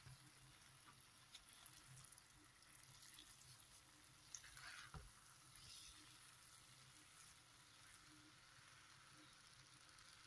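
Near silence: faint room tone, with a faint brief scrape from a wooden spoon stirring pasta in a frying pan about five seconds in.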